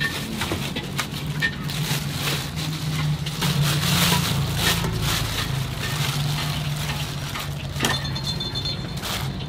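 Thin clear plastic bags crinkling and rustling as they are opened and sliced raw pork is pulled out of them by hand. A steady low hum runs underneath.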